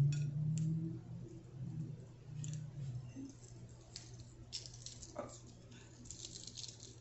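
Shell of a hard-boiled egg being picked and peeled off by fingertips: faint, scattered small crackles and clicks, busier in the second half.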